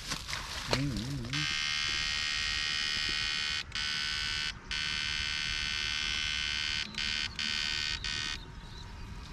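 Battery-powered backpack electrofishing unit buzzing steadily while current is sent into the water through the rod to stun fish. The buzz starts about a second and a half in, breaks off for moments a few times as the current is switched off and on, and stops near the end.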